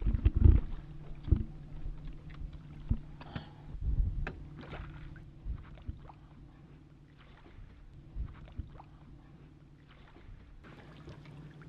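Irregular knocks and thumps on a fishing boat as a just-caught bass is brought aboard and handled, loudest in the first second and sparser after, over a steady low hum.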